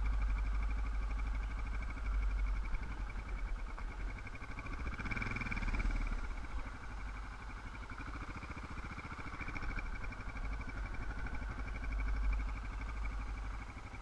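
Dirt bike engine idling, a steady low rumble with a slight swell about five seconds in.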